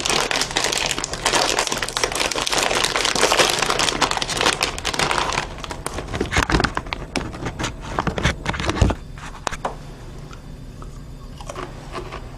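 Plastic snack bag of potato bites crinkling as it is handled, dense at first, then thinning to scattered crinkles that die away about nine seconds in.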